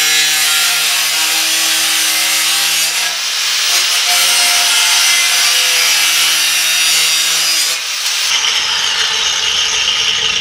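Angle grinder with a cutoff wheel cutting through the steel bars of a 1933–34 Ford truck grille shell: a steady, harsh grinding over the motor's whine. About eight seconds in the motor's hum drops away and a thinner grinding noise carries on.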